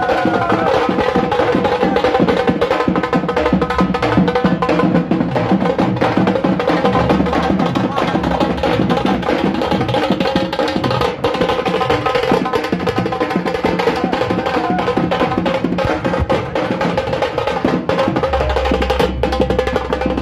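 Dhol drums beaten in a fast, steady rhythm, with pitched music playing along.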